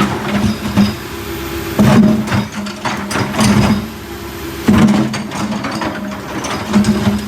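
Backhoe's engine running steadily, with four bursts of loud metallic clanking and rattling as the machine works.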